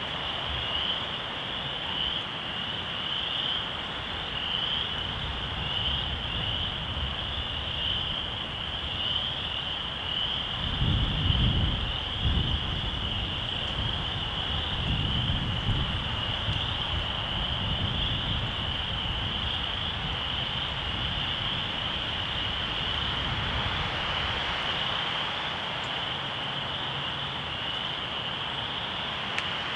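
A dense chorus of calling frogs, a steady high-pitched trilling wash with no break, with wind gusting on the microphone as low rumbles about eleven seconds in and again a few seconds later.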